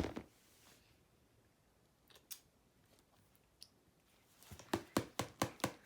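Small plastic toys being handled, making sharp clicks: one at the start, a few faint ticks, then a quick run of about three clicks a second from about four and a half seconds in.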